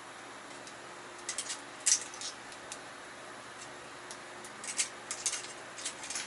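Steady hiss of paella cooking in a wrought-iron Turk frying pan over a wood fire, with scattered sharp crackles and pops in two short clusters, the loudest about two seconds in.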